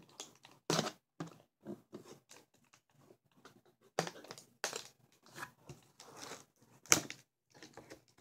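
Small knife cutting through packing tape on a cardboard box, in short irregular scraping strokes with cardboard rustling, and a sharp click about seven seconds in.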